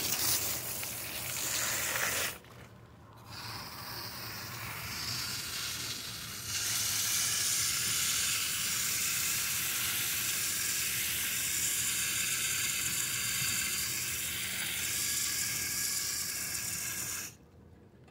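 Steady hissing rustle of cloth rubbing over the phone's microphone. It dips briefly a couple of seconds in and cuts off suddenly near the end.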